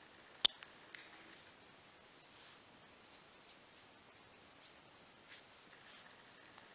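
A single sharp click about half a second in, a slip-joint pocket knife's blade snapping shut on its backspring. Birds chirp faintly in short falling calls a couple of times in the background.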